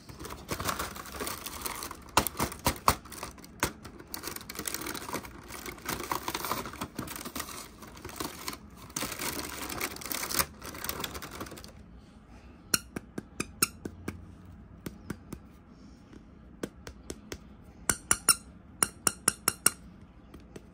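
Packaging being handled and unwrapped: a dense rustling and crinkling with sharp clicks for about twelve seconds. After that come scattered sharp clicks and taps, some in quick runs.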